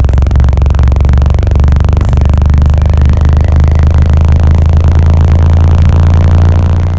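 Two 12-inch car subwoofers, driven by a 5000-watt amplifier, playing very loud, deep bass that holds steady and cuts off near the end.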